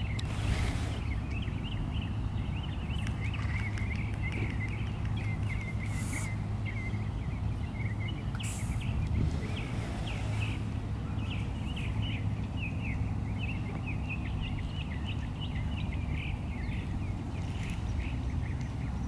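Many small birds chirping continuously in quick, overlapping calls, over a steady low hum, with a few brief rushes of noise.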